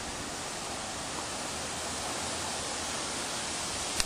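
Steady, even hiss of background noise with no distinct source, and one short click near the end.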